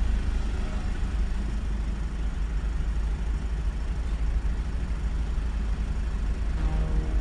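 A car driving, with a steady low rumble of engine and road noise heard from inside the car.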